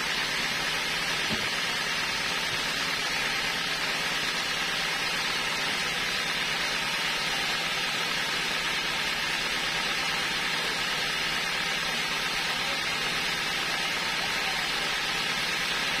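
Sawmill machinery running steadily, a constant hiss with a low hum, idling while a log is loaded and not cutting.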